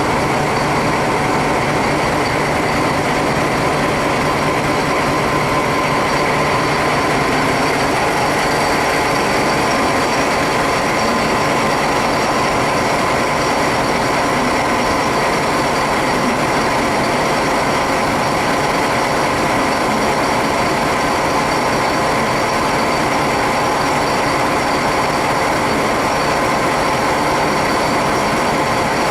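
SNCF BB 67400 diesel locomotive's engine idling steadily, a constant hum with several held tones.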